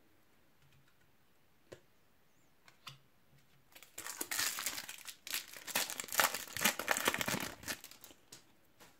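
Foil wrapper of a Topps Match Attax card packet crinkling and tearing as it is opened by hand. The rustle starts about four seconds in and lasts about four seconds, after a few faint clicks.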